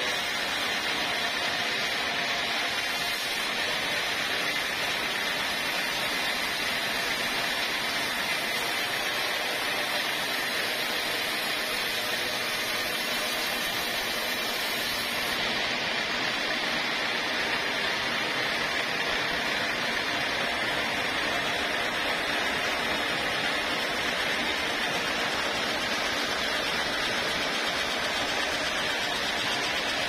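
Band sawmill running, its vertical band saw blade cutting lengthwise through a teak log: a steady, even hiss of blade and motor.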